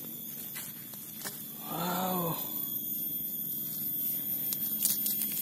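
A man's short wordless hum, rising and falling, about two seconds in, over a steady background, with a few sharp clicks near the end.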